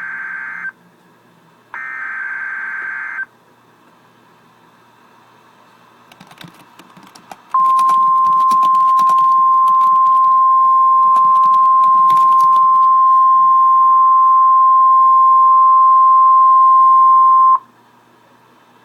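Emergency Alert System SAME header: a short burst of warbling digital data tones ending just after the start and a second one a couple of seconds later. After a few seconds of faint crackling static, NOAA Weather Radio's single 1050 Hz warning alarm tone sounds loud and steady for about ten seconds and cuts off suddenly, the alert signal for a severe thunderstorm watch.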